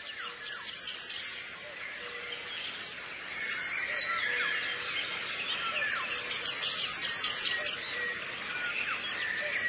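Songbirds chirping and singing in a busy chorus. A rapid trill of falling notes comes at the start and again about six seconds in.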